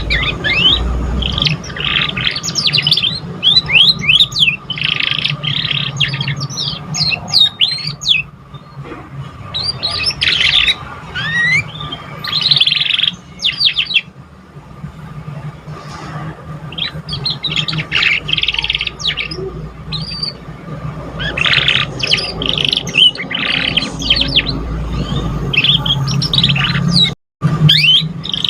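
Domestic canary singing in bursts of rapid chirps, trills and fast sweeping whistles, broken by short pauses, over a steady low hum. The sound cuts out completely for a moment near the end.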